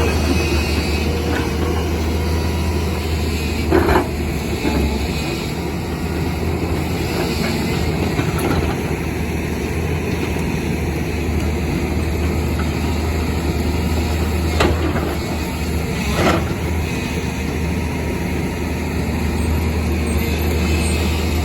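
Excavator's diesel engine running steadily, with three sharp knocks: one about four seconds in and two more close together later on.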